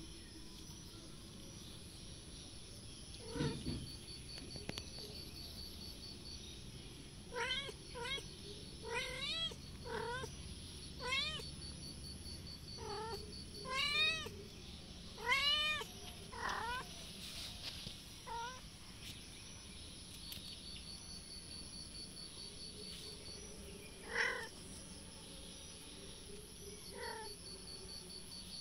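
Kitten mewing: a quick run of short, high mews, each rising and falling in pitch, about a dozen over ten seconds, then two more after a pause. A single low thump comes a few seconds before the mews.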